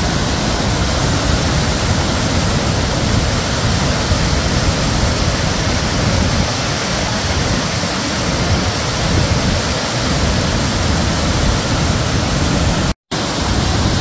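Nugget Falls, a large waterfall, pouring down rock tiers in a loud, steady rush of whitewater. The sound cuts out for a split second about a second before the end.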